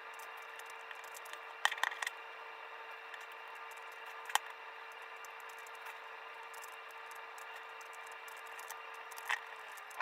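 Plastic Megaminx puzzle being turned by hand, its layers making light clicks and clacks, with sharper clacks about two seconds in, at about four seconds and near the end. A steady hum runs underneath.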